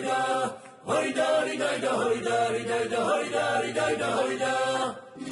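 Background vocal music: voices singing a slow, chant-like melody in long held notes, breaking off briefly under a second in.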